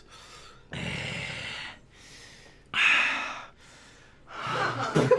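Three breathy gasps from a person, spaced out across the stretch.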